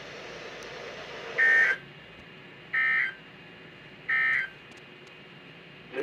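Weather radio sounding three short, identical screechy bursts of SAME digital data about 1.3 s apart: the End-of-Message code that closes an Emergency Alert System warning. Faint radio hiss drops away after the first burst.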